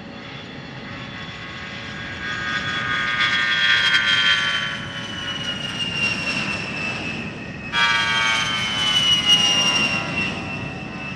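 A-10 Thunderbolt II's twin TF34 turbofan engines at takeoff power as it rolls past, a high whine over a steady jet noise that falls in pitch as it goes by. About three-quarters of the way through, the sound jumps abruptly louder and the whine starts high and falls again.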